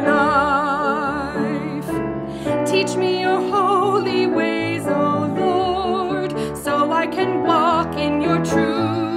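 A woman singing a slow worship song with a marked vibrato, held notes gliding into one another, over piano accompaniment with sustained chords and bass notes.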